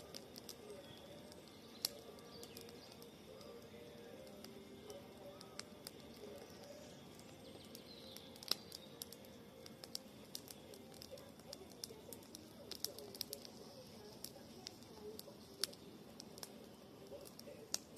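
Wood campfire crackling, with sharp irregular pops and snaps, a few standing out loudly, over faint birdsong and cooing in the background.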